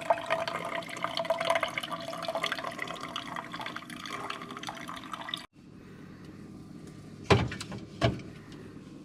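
Running, trickling water for about five and a half seconds, cut off abruptly, followed by two sharp knocks less than a second apart.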